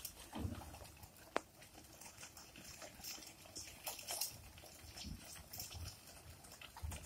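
A flock of domestic pigeons feeding from a tray: faint, irregular pecking clicks and brief wing flutters, with one sharper click about a second and a half in.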